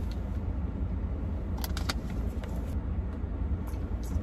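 Steady low rumble inside a car cabin, with a few faint clicks about one and a half to two seconds in.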